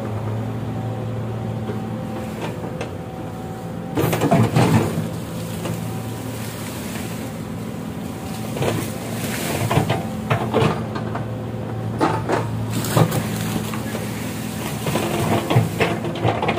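Excavator's diesel engine running steadily, with clusters of sharp clanks and knocks about four seconds in and again through the second half.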